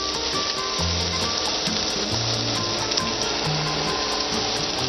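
Minced garlic frying in hot oil in a stainless steel pot, a steady sizzle.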